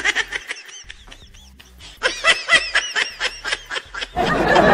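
High-pitched giggling laughter in quick repeated bursts, twice, with a short lull between. Near the end a loud, even rushing noise sets in.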